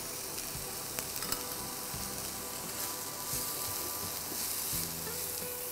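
Diced tomato, paneer and bell peppers sizzling in oil in a non-stick frying pan while being stirred with a spatula, a steady hiss with a couple of light clicks about a second in.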